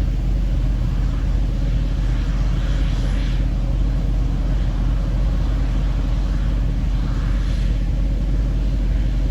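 Vehicle engine running at a steady speed, a low even drone with no changes in pitch.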